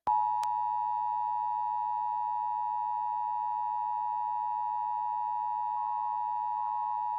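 Emergency Alert System attention signal: the steady two-tone alert (853 and 960 Hz) of a broadcast Required Monthly Test, starting abruptly just after the start and holding without change.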